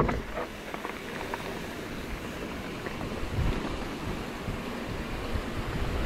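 Wind rushing over an action camera's microphone while mountain biking, with a few short knocks from the bike just at the start.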